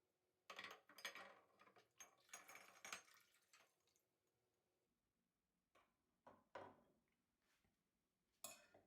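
Faint, scattered clinks and knocks of glass canning jars being handled as they are emptied of their hot sterilizing water.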